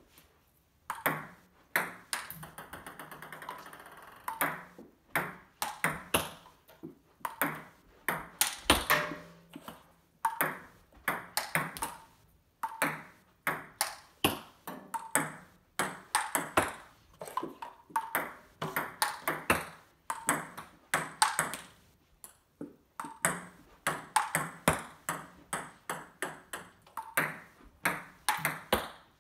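Ping-pong ball clicking off paddles and a JOOLA table in quick rallies with hard smashes. Runs of sharp clicks come with short pauses between points, and one hit about nine seconds in is especially loud.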